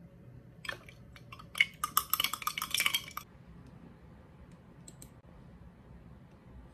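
Ice clinking in a glass mason-jar mug of iced milk as it is handled, a quick run of light glassy clinks lasting a couple of seconds, followed about five seconds in by two faint clicks.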